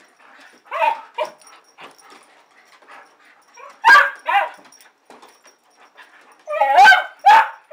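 Dog vocalizing in short excited whines and yips with bending pitch, coming in pairs, loudest about four seconds in and again near the end: excitement at the expectation of an outing.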